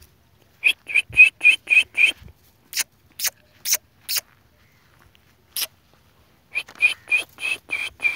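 Crows cawing: a quick run of about six short harsh caws, a few single caws, then another run of about seven.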